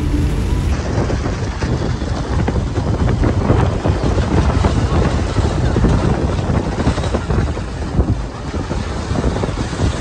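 Vehicle cabin noise while driving over rough, wet ground: a low running rumble with many knocks and rattles, and wind buffeting the microphone.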